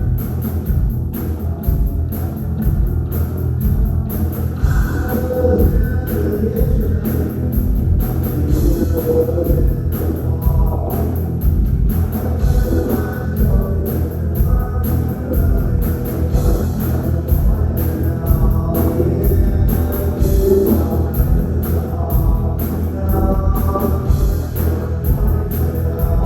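Rock music: a drum kit keeps a steady beat under guitar, with wavering melodic lines that may be vocals.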